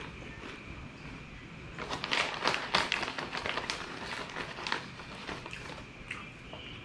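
Plastic snack bag crinkling and crackling as it is handled and a hand reaches in for chips, densest between about two and five seconds in.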